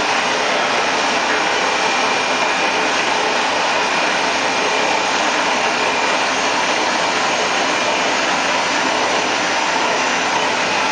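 Mori Seiki MV-65B/50 vertical CNC machining center running: a steady whirring hiss with a faint high whine over it.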